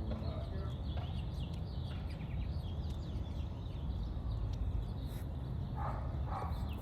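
Several small songbirds calling with many short, high chirps, over a steady low rumble.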